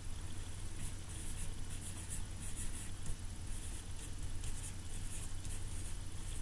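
Whiteboard marker squeaking and scratching across the board in many short, quick strokes as letters are written, over a steady low hum.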